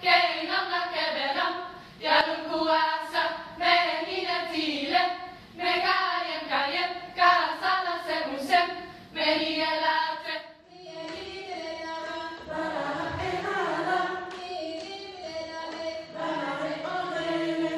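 A line of kneeling dancers singing in unison while striking out a fast rhythm of claps and body slaps, in the manner of the Acehnese Saman dance. About ten seconds in the clapping stops and the sound turns to smoother held notes.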